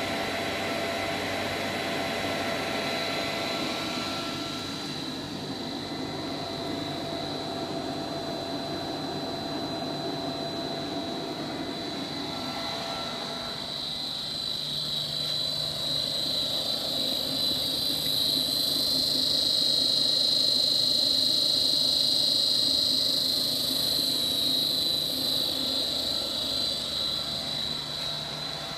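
Toshiba VT130G9U4330 30 HP transistor inverter (industrial motor drive) running on test, a steady high whine over a running hum. It grows louder about halfway through and eases near the end.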